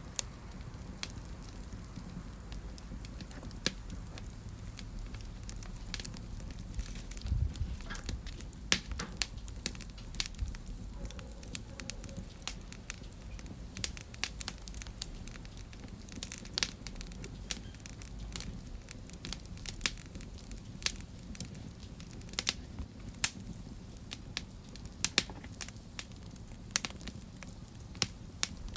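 Wood fire burning in a fireplace: irregular sharp crackles and pops over a steady low rumble of the flames, with a heavier thud about seven seconds in.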